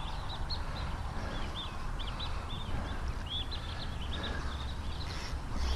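Small birds chirping: a run of short, quick rising-and-falling notes, over a steady low rumble.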